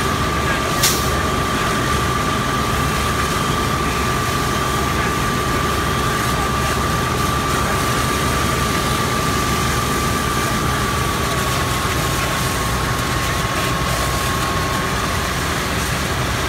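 Fire truck's heavy engine idling steadily, with a constant high-pitched whine over it that dips slightly in pitch late on and stops near the end. One sharp click about a second in.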